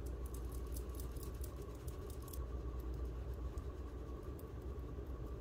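Powder makeup brush sweeping bronzer over the skin of the cheek: faint, soft scratchy strokes, mostly in the first half, over a steady low hum.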